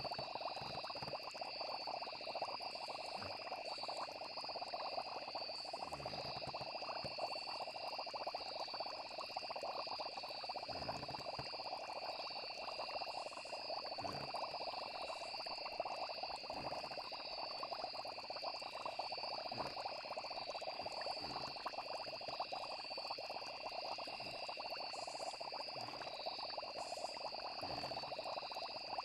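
A steady night chorus of frogs and chirring insects, with soft low thumps every couple of seconds.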